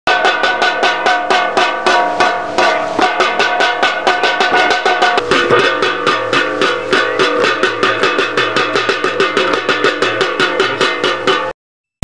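Homemade wind-driven bird scarer (kincir angin) spinning, its striker hitting a metal can or disc several times a second in a fast, even clatter, the metal ringing with each strike. The ringing changes pitch about five seconds in.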